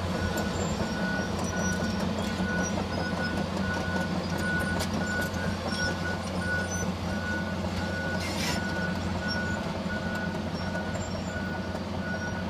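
John Deere excavator's diesel engine running as the machine tracks over dirt, its travel alarm beeping steadily at about three beeps every two seconds.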